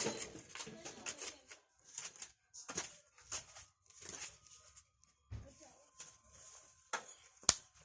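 Irregular short clicks and knocks of objects being handled, with a dull thud a little past five seconds and a sharp, loud click about seven and a half seconds in.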